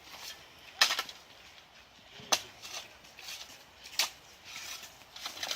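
Footsteps on a trail, four sharp steps about a second and a half apart.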